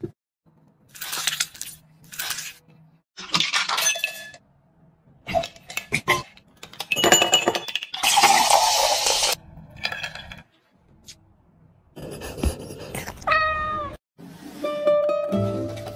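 Drink-making sounds: a strawberry and ice dropping and clinking into a glass, then fizzy soda poured from a glass bottle for about two seconds. Near the end a cat meows once, and light music begins.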